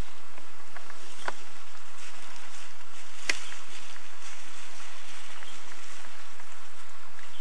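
Steady hiss of outdoor background noise, with two sharp clicks, one about a second in and a louder one about three seconds in.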